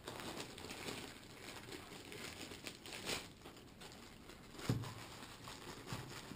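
Clear plastic accessory bags crinkling and rustling as they are handled, with two soft knocks later on.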